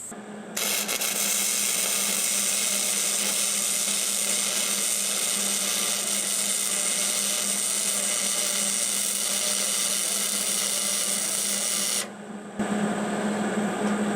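MIG welder arc laying a bead on a steel wheel rim: a steady hiss that starts about half a second in, runs for about eleven seconds and cuts off sharply, over a low steady hum.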